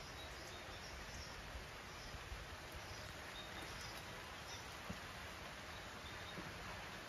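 Quiet outdoor ambience: a steady faint hiss with scattered faint chirps from small birds and a few light ticks.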